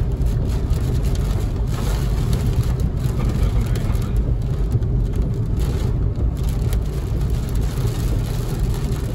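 Steady road noise inside a moving car: engine and tyres on wet pavement, with rain hitting the windshield.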